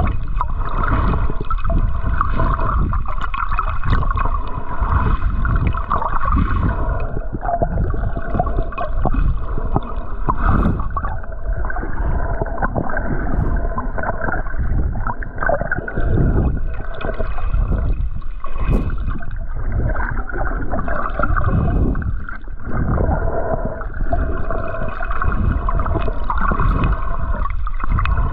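Water sloshing and gurgling, muffled as heard underwater, with low rumbling that rises and falls unevenly.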